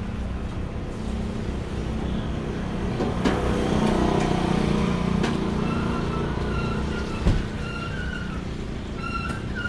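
Outdoor traffic noise: a steady low rumble of motor vehicles, swelling as a vehicle passes about three to six seconds in, with a sharp click about seven seconds in. From about halfway, a high whistle-like tone comes and goes in short stretches.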